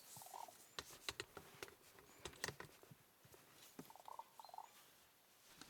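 Faint, near-silent outdoor ambience with scattered light clicks and taps and two brief, soft calls, the first just after the start and the second about four seconds in, typical of small birds foraging close by.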